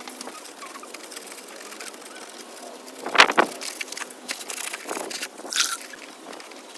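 Wiping and handling while cleaning a car's engine bay with water, with a single sharp knock about three seconds in and a brief scrape a couple of seconds later.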